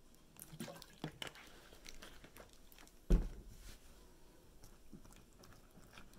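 Light clicks and scrapes of a plastic spoon and a plastic water bottle against a ceramic bowl as a little water is added to a flour paste and stirred. One thump about three seconds in is the loudest sound.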